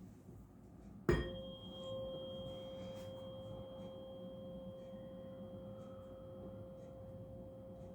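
A 528 Hz tuning fork, struck once about a second in, then ringing on as a steady pure tone with faint higher overtones.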